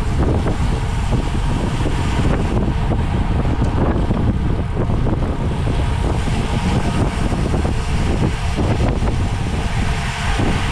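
Wind buffeting a microphone: a steady, loud low rumble with a hiss above it.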